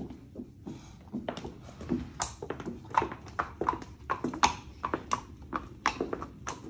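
A horse's hooves clip-clopping at a walk on a concrete floor: an uneven run of sharp hoof strikes, about three a second.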